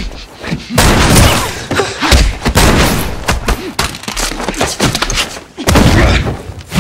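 Hand-to-hand fight sound effects: a fast run of heavy, booming punches and body blows with whooshes between them, the hardest hits near the start, about a second in, and again near the end.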